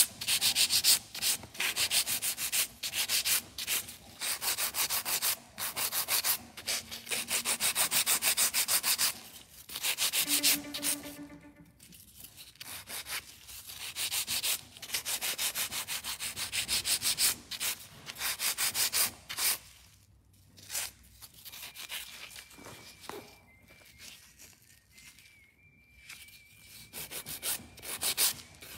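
Hand nail file scraping back and forth in rapid strokes against a sculpted acrylic nail, shaping its sides. The strokes are steady and loudest for the first ten seconds or so, then lighter and more spaced out.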